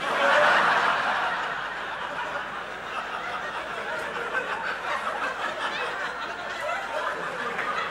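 Audience laughing together after a punchline, a sudden loud burst that stays up, easing only slightly.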